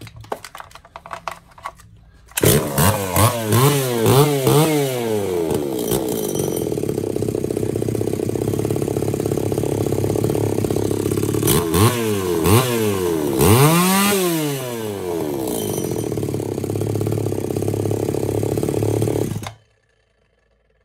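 Freshly rebuilt 1992 Tanaka ECS-3301B two-stroke chainsaw engine on its test run. It starts about two seconds in and is revved in quick throttle blips, with the pitch rising and falling. It then runs steadily, is blipped a few more times, and cuts off abruptly near the end.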